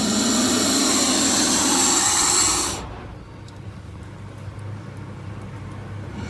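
Mosasaurus roar sound effect: a loud, hissing, rasping roar over a low rumble. It dies away sharply a little under three seconds in, leaving a quieter low rumble with a few faint clicks.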